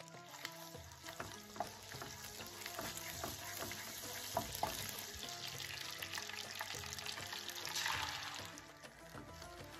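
Butter sizzling in a nonstick frying pan while a wooden spoon stirs it, with scattered clicks of the spoon against the pan. About eight seconds in, the sizzle swells louder as semolina soaked in milk is poured into the hot butter, then dies down. Background music runs underneath.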